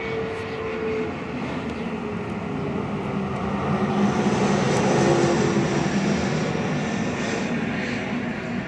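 An engine passes by, swelling to its loudest about five seconds in and then fading, its drone falling in pitch as it goes past.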